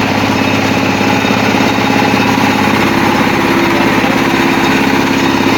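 Combine harvester running steadily, its engine giving a rapid, even pulse.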